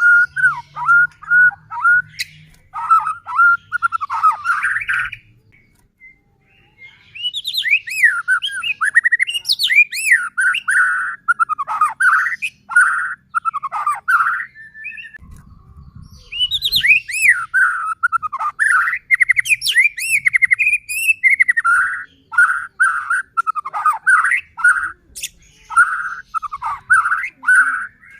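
White-rumped shama (murai batu) singing loudly in long phrases of fast, repeated sweeping notes, pausing briefly twice.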